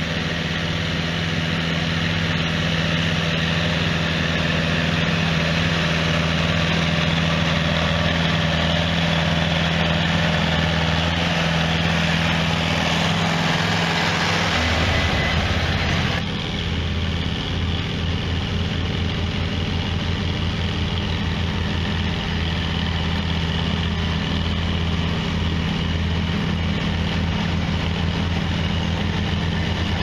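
John Deere tractor engine running steadily under load while pulling a moldboard plow through the field. About halfway through the sound changes to a closer engine with a quick, even beat.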